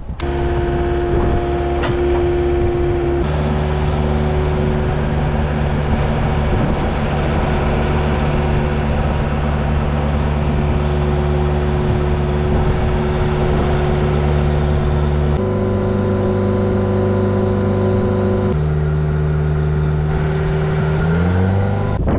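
Engine of the machine drilling the foundation pier holes, running steadily; its pitch shifts a few times and climbs near the end.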